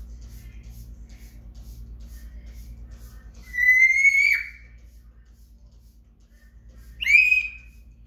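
An African grey parrot whistles twice. The first is a long whistle that rises slightly and drops off sharply at its end. About three seconds later comes a short whistle that swoops down and levels off.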